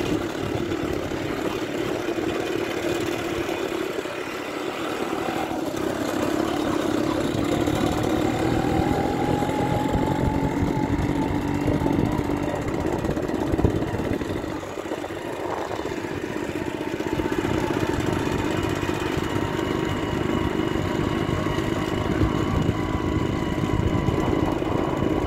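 Motorcycle engine running as the bike is ridden along at a steady pace, with a brief dip in loudness a little past the middle.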